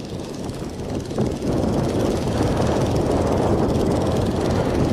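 Boat engine running steadily under way, growing louder about a second and a half in and then holding level.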